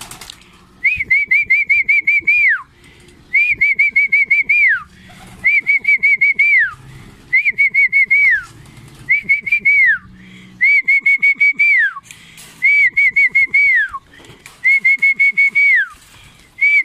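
A pigeon keeper's feeding-call whistle: a loud trilled whistle repeated about every two seconds, each phrase ending in a quick downward slide. It is the signal to the young racing pigeons that food is down.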